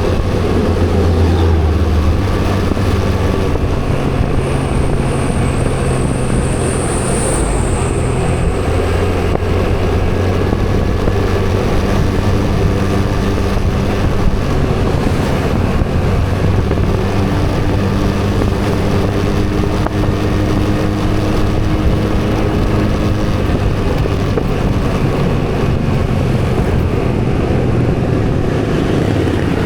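Motorcycle engine running while riding, with road and wind noise; its pitch steps up and down a few times as speed changes. A brief high whine comes a few seconds in.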